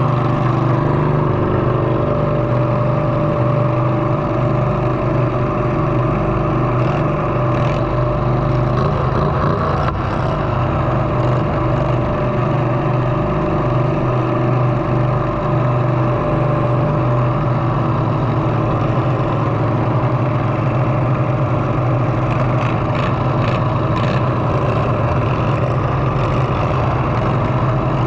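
Lawn mower engines running steadily and loudly, with no revving up or down.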